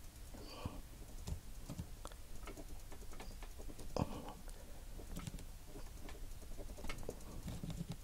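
Faint scattered clicks and light scraping of a steel flathead screwdriver working against an aluminium battery terminal tab and a bamboo stick as the tab is pried up, with a slightly louder click about four seconds in.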